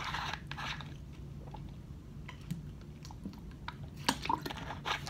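Plastic water bottle crinkling as it is handled in the first second. About four seconds in come a few gulps of water drunk from it.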